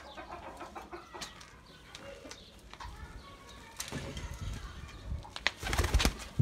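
Domestic pigeons moving about in a pen: scattered wing flaps and light clicks, with louder low rustling near the end.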